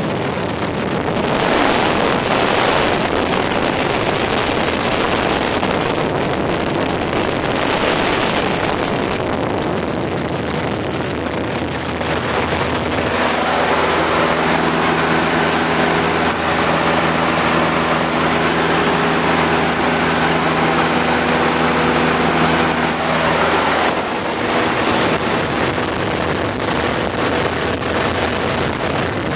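Cessna light aircraft's engine and propeller running steadily in flight, heard inside the cabin with loud airflow noise. A steady pitched engine tone stands out more clearly through the middle of the stretch.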